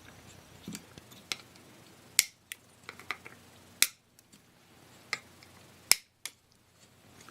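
Wire cutters snipping off the excess component leads on a soldered circuit board: about half a dozen sharp, irregularly spaced snips, with a few fainter ticks between them.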